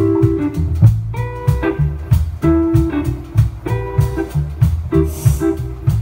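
Live band playing: electric guitars over a drum kit keeping a steady beat.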